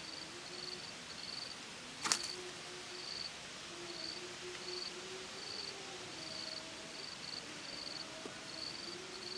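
Insects, crickets by their sound, chirping in short, evenly repeated high pulses about one and a half times a second over a steady hiss of outdoor ambience, with a faint low wavering tone underneath. A single sharp click about two seconds in.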